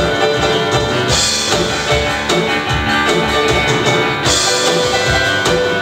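Live band playing an instrumental passage on guitar and piano with a steady beat.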